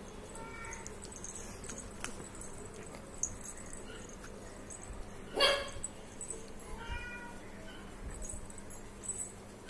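Persian cat meowing three times while being brushed: a faint short meow about half a second in, a loud one a little over five seconds in, and another around seven seconds in.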